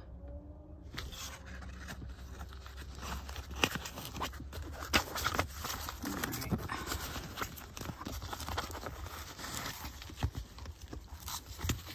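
Paper booklets and cards being shuffled and handled in a vinyl owner's-manual wallet: irregular rustles, crinkles and light taps, with some fingers brushing against the phone.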